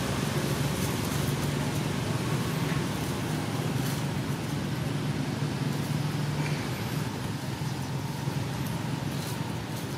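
Steady low hum of a running engine over a broad background rumble, easing slightly about two-thirds of the way through, with a few faint high chirps.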